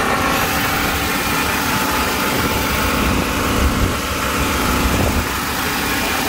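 Boat engine running steadily under way, a constant drone under an even rushing noise.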